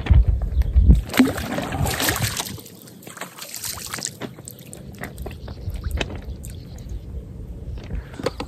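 Water splashing and sloshing in the shallows at a lake's edge as a fish is released and swims off. The loudest splashes come in the first two seconds, followed by softer sloshing and small splashes.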